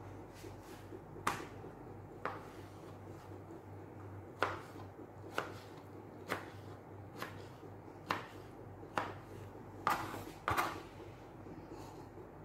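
Kitchen knife chopping mango pieces on a plastic cutting board: about ten sharp knocks of the blade striking the board, roughly a second apart.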